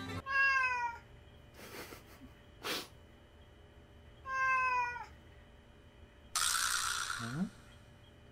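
A tabby cat meows twice, two short calls falling slightly in pitch about four seconds apart, while sitting in its litter box: an angry 'don't look at me' in the owner's reading. Near the end comes a noisy burst about a second long.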